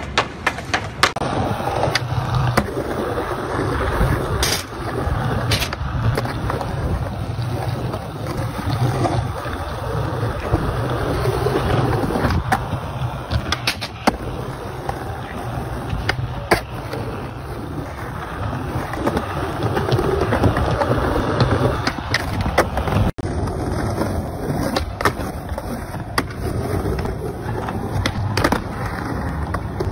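Skateboard wheels rolling over concrete, with several sharp clacks of the board's tail popping and the deck slapping down on tricks and landings.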